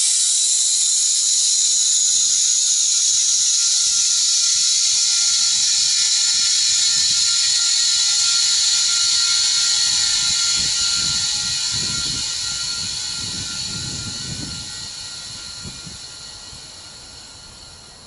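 Compressed air rushing out of a homemade bead-seater tank into a truck tire to seat the bead: a loud hiss that starts suddenly, holds steady for about ten seconds, then fades away as the pressures even out, with a few low thumps partway through.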